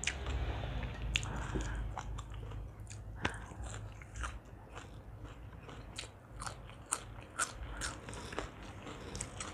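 A person chewing and biting crunchy food close to the microphone: papaya salad and crisp raw vegetables. There are irregular sharp crunches, a dozen or so, between quieter chewing.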